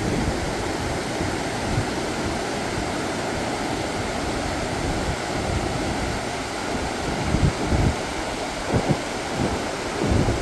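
Swollen river rushing steadily in flood after days of heavy rain. From about seven seconds in, wind buffets the microphone in low gusts.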